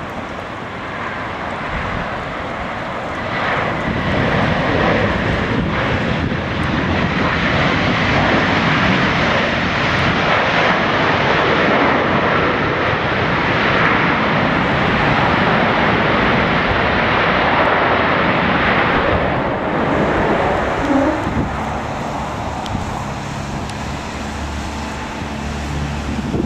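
Airbus A320-232's IAE V2500 turbofans during the landing run. The jet noise swells about three seconds in, stays loud through the middle, then dies away in the last few seconds.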